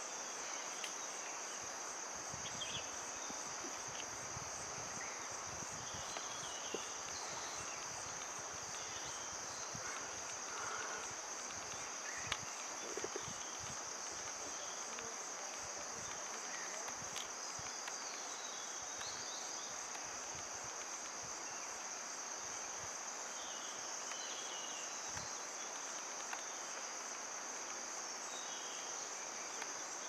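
Steady high-pitched drone of insects, with a few faint bird chirps scattered through it.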